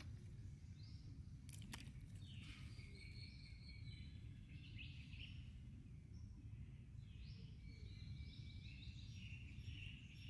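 Birds chirping and calling faintly in short repeated phrases, more of them toward the end, over a low steady outdoor rumble, with a single click about two seconds in.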